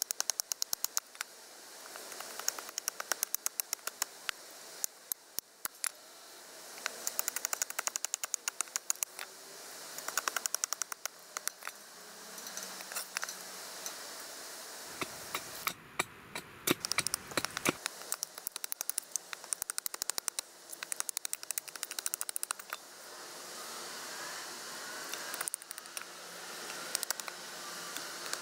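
A nata (Japanese hatchet-knife) chopping and shaving a wooden stick held against a wooden stump. The cuts come as runs of sharp knocks and clicks, many in quick succession, repeating every few seconds.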